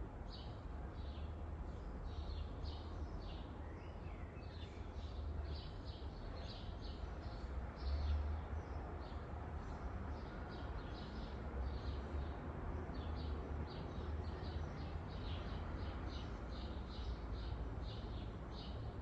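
Rural garden ambience: small birds chirping in quick, repeated short notes, about two or three a second, over a steady low rumble. The rumble swells briefly about eight seconds in.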